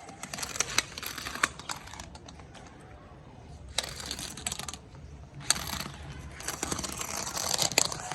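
Interactive cat toy ball clicking and rattling on a hard surface in three spells of rapid clatter, with quieter gaps between.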